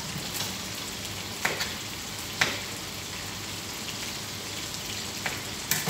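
Chicken pieces and green chillies sizzling in a frying pan on a gas burner: a steady crackling hiss with a few sharp pops.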